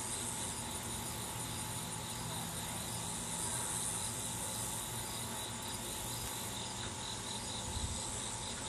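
Outdoor insect chorus, crickets chirping in a steady, high, evenly pulsing trill.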